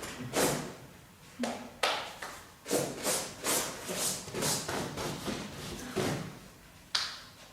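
Irregular knocks, taps and scrapes, about one or two a second, of objects being handled and moved about on a hard floor, with a sharper knock near the end.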